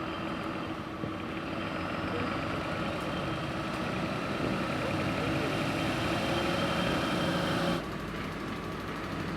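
A heavy vehicle's engine running steadily, growing gradually louder, then cut off suddenly near the end.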